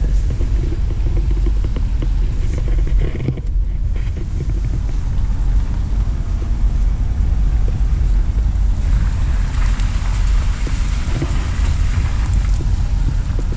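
A car driving, with steady low road and engine noise.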